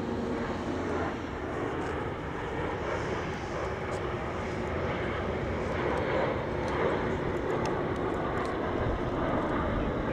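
Jet engines of a six-ship formation of L-39 Albatros jet trainers flying overhead, a steady rushing noise without a clear pitch that grows slightly louder in the second half.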